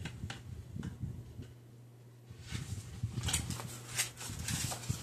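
Plastic Blu-ray and DVD cases being handled: scattered light clicks and taps that die down for about a second in the middle and grow busier in the second half, over a steady low hum.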